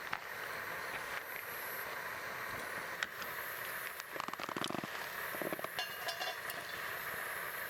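Campfire crackling: a steady hiss with scattered small pops and clicks, and a brief buzzing sound about four seconds in.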